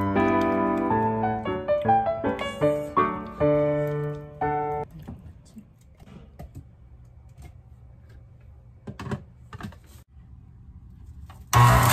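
Background piano music for the first few seconds. Then a quiet stretch with a few light clicks, and near the end a Breville BJE200XL centrifugal juicer's motor switches on, its whine rising as it spins up.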